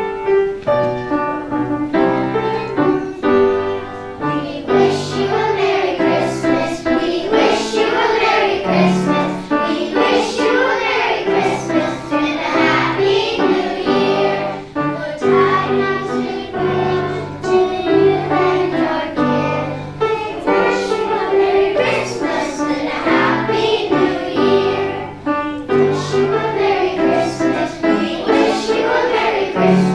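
A group of young children singing together as a choir with instrumental accompaniment, starting suddenly out of silence.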